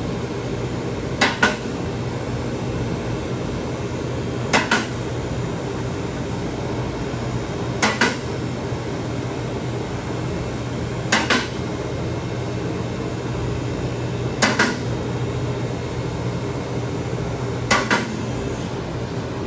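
Sharp double metallic clicks, one pair about every three and a third seconds, six times in all, over a steady low hum.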